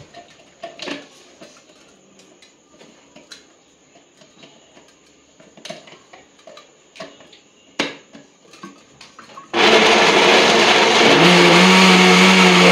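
Electric kitchen blender switched on about two-thirds of the way in, running loudly as it blends mango, milk and sugar into a shake; a steady motor hum comes through about a second and a half after it starts. Before it, only light clicks and knocks of the jug and lid being handled.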